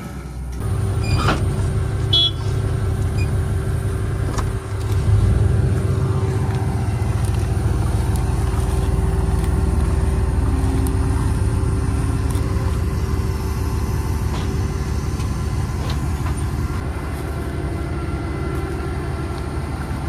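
John Deere S670 combine's diesel engine running steadily close by, a little louder from about five seconds in, as the combine sets its draper header onto the header cart.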